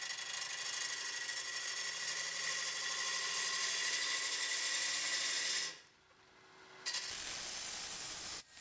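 Bowl gouge taking pull cuts across the face of a honey locust burl bowl spinning on a wood lathe: a steady hiss of the cut. It drops away for about a second past the middle, then resumes and stops just before the end.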